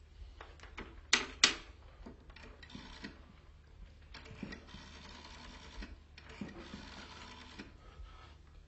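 Telephone being redialled after a dropped call: two sharp clicks of the handset and cradle, then the small mechanical clicking and whirring of the dial.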